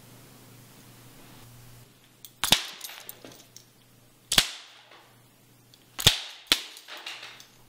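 Four sharp cracks at uneven intervals, each dying away quickly: the first about two and a half seconds in, one near the middle, then two about half a second apart. A faint low hum lies under them.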